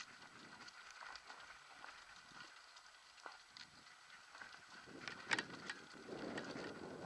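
Mountain bike rattling and clattering down a rocky dirt trail, with scattered sharp knocks from the wheels hitting stones, the loudest about five seconds in.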